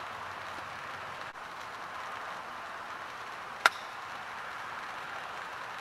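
Steady hiss of light rain, with one sharp crack about three and a half seconds in, typical of a golf club striking the ball.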